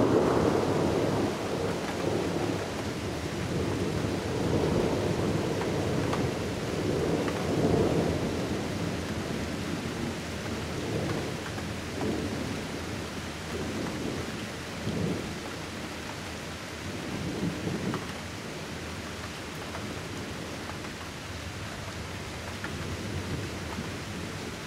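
Thunder rumbling in long rolls, loudest over the first several seconds, then dying back in weaker swells, over a steady hiss of rain.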